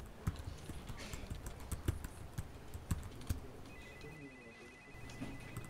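Computer keyboard typing: a run of irregular key clicks. About three and a half seconds in, the clicks thin out and a steady high tone starts.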